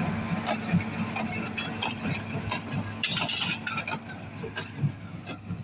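Tractor engine running steadily, with frequent light metallic clinks and rattles over it.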